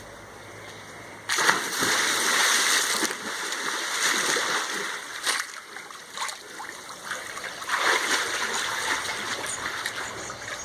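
Water splashing in a swimming pool, starting suddenly about a second in and going on unevenly as someone moves about in the water, easing off midway and picking up again near the end.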